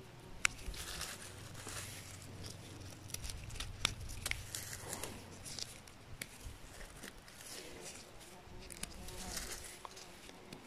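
Rubber-gloved hands handling and trimming freshly picked mushrooms with a knife: soft rustling and crinkling with many small sharp clicks and snaps.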